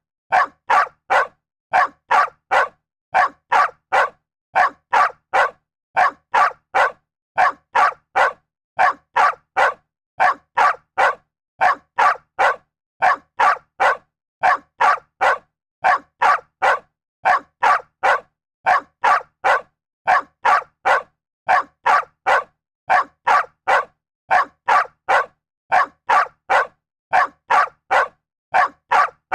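A dog barking in quick sets of three short barks, with a set about every second and a half, over and over at a steady, even rate.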